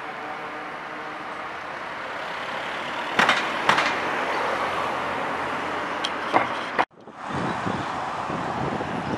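Outdoor street ambience: a steady wash of road traffic noise, with two sharp knocks a little after three seconds in. The sound cuts out abruptly near seven seconds and fades back in.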